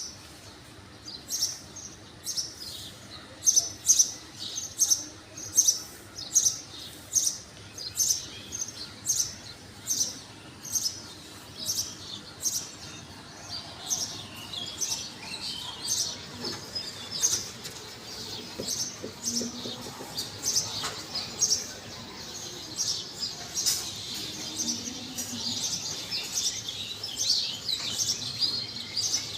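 Small birds chirping: a short, sharp chirp repeats about twice a second, and about halfway through the chirping grows denser and more varied.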